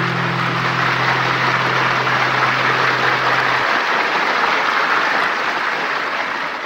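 Audience applauding at the end of a song, while a last low chord on the nylon-string acoustic guitar rings on under it and stops about four seconds in. The applause fades out near the end.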